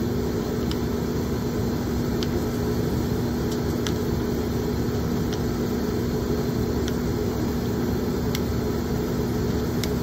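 Oil furnace firing, its burner and blower giving a steady drone with a constant hum. Faint clicks about every second and a half come from the strokes of a hand smoke-tester pump drawing flue gas for a smoke test.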